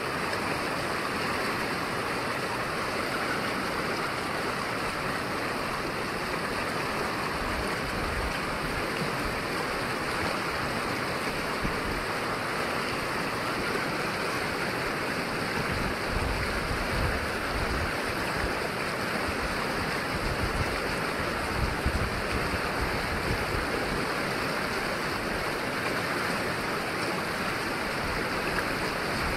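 Fast mountain river rushing over rocks, a steady whitewater roar, with a few low rumbles in the second half.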